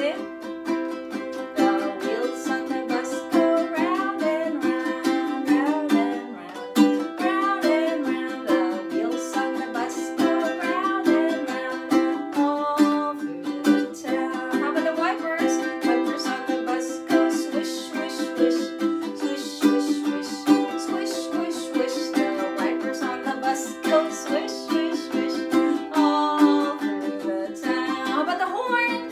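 A woman singing a children's song while strumming chords on a ukulele, with regular strums under the sung melody.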